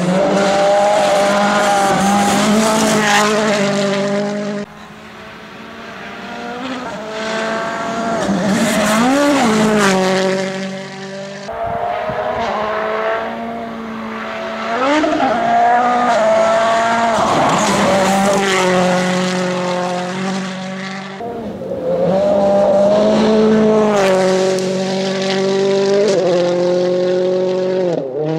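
Ford Fiesta RS WRC rally car's 1.6-litre turbocharged four-cylinder engine driven hard at high revs, its pitch rising and falling with throttle and gear changes. Several separate runs are joined by abrupt cuts.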